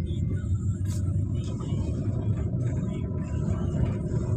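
Steady low rumble of a car driving along a country road, engine and tyre noise heard from inside the cabin, with a faint click about a second in.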